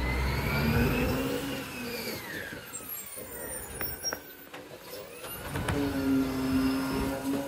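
Side-loader garbage truck's diesel engine slowing to a stop, its note falling, with a few clicks and knocks. About two-thirds of the way in the engine settles into a steady, higher hum as the truck stands beside the bin, ready to work its lifting arm.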